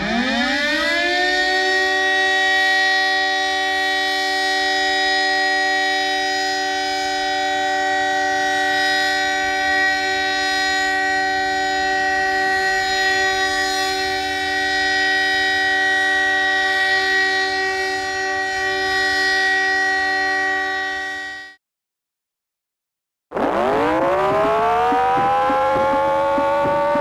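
Argentine alert siren winding up within a second, then holding two steady pitches at once for about twenty seconds before cutting off. After a brief silence the Iranian alarm siren starts winding up slowly from a low pitch.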